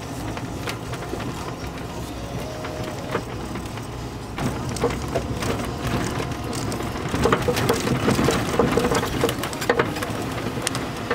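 Off-road vehicle driving slowly along a rutted dirt track, its engine humming low under a stream of rattles and knocks from the body and suspension over the bumps. The knocking gets busier and louder about halfway through.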